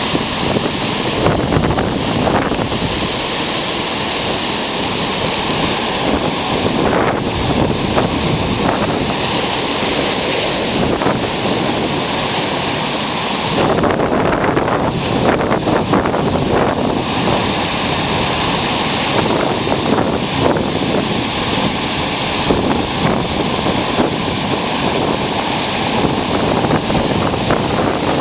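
Ocean surf breaking and washing up a sandy beach on Java's south coast: a loud, continuous rush of water.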